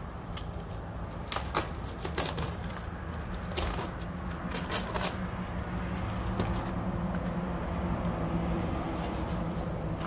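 Scattered sharp clicks and cracks from a large roll of plastic sign sheets in cardboard wrapping as it is handled and pulled open, over a steady low hum.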